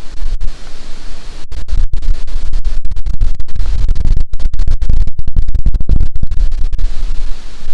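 Strong hurricane wind gusting and buffeting the microphone. It is a loud, rough low rumble with lighter hiss above, broken by many brief cutouts.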